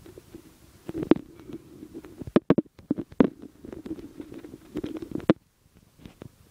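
Rumbling handling noise on the camera's microphone, with many irregular knocks and clicks, cutting out briefly twice.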